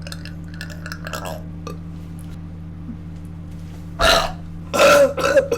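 A person burping loudly twice near the end, a short burp followed by a longer one.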